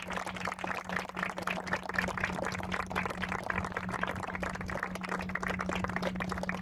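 A crowd applauding: many hands clapping together in a dense, continuous patter. A steady low hum runs underneath.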